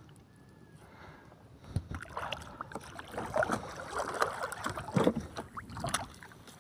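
Seawater splashing and sloshing in a run of irregular bursts, starting about two seconds in and loudest near the end, as a fishing net and its jerry-can float are hauled up by hand.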